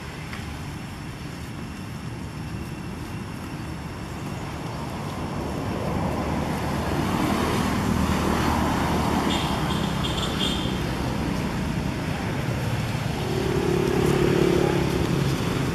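Motor vehicle engine running nearby with traffic noise, a low hum that grows louder about six seconds in and stays up.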